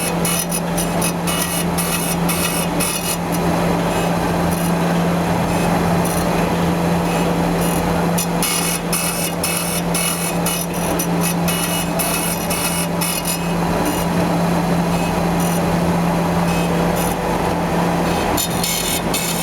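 Gear-grinding machine running: a steady low hum with a higher hiss that comes and goes irregularly.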